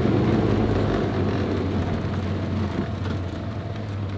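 Side-by-side UTV engine running steadily as it drives along a paved road, a low steady hum with road and wind noise, slowly getting a little quieter.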